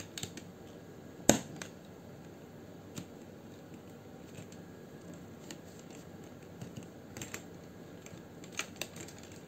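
Spacebar of a Rexus mechanical keyboard being pressed to test it, with its switch reinstalled and its stabilizer clipped. A sharp clack comes about a second in, then scattered lighter clicks and clacks.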